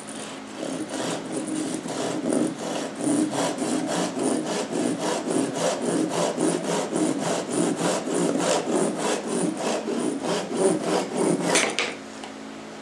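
Japanese pull saw cutting by hand through the end of a turned wooden cylinder, in quick, even strokes of about three a second, until the offcut comes free and the sawing stops shortly before the end.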